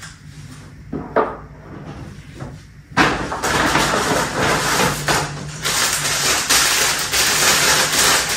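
A few light knocks, then, starting suddenly about three seconds in, loud continuous crinkling and rustling of packing wrap as a newly bought item is unwrapped.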